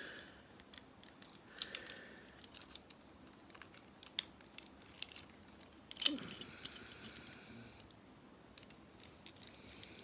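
Plastic clicks and light rattling from a Transformers Soundwave action figure's joints and parts as they are turned and moved during transformation, with a sharper snap about six seconds in.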